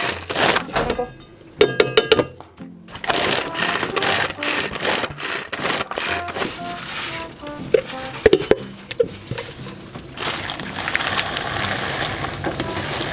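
A small food chopper whirring in short bursts as it minces carrot, cucumber and ham, over background music. Near the end a steadier hiss takes over as a pot of water boils.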